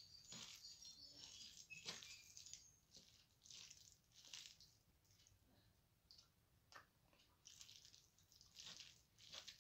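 Fingers mashing and mixing soft, starchy rice with mashed potato on a metal plate: faint, irregular wet squishes about once or twice a second, with a few thin high squeaks in the first two seconds.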